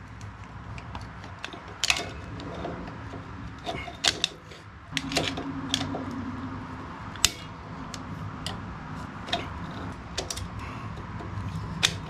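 Steel hand tools (a homemade flat bar spring tool and locking pliers) clicking and scraping against a valve spring and rocker posts on a Tecumseh OHV engine head while the spring is forced down to fit the valve keepers. There are scattered sharp metallic clicks and knocks over a low steady background.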